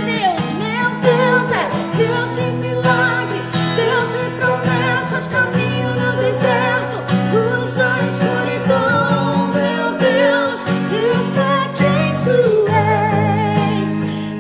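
A woman singing a Portuguese worship song with vibrato, accompanied by an acoustic guitar.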